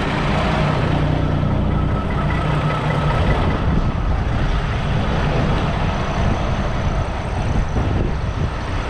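Semi-truck diesel engine running steadily at low revs, a constant low hum.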